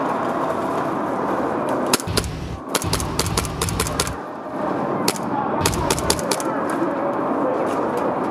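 Airsoft electric guns firing rapid bursts of shots, each shot a sharp clack. There are two main bursts, about two seconds in and about five and a half seconds in, with scattered single shots in between.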